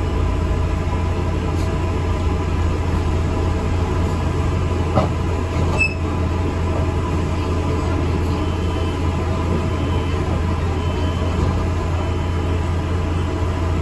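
ADL Enviro400 MMC double-decker bus running, heard from inside: a steady low engine drone and road rumble, with a short knock about five seconds in.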